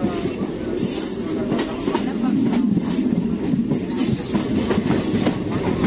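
Train running on the rails: a steady, loud rumble of wheels and carriages, with repeated clatter and brief high-pitched squeals from the wheels.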